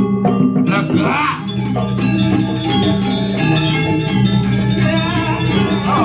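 Gamelan ensemble music accompanying the performance, with many steady held metallic tones. A performer's voice comes briefly over the microphone about a second in.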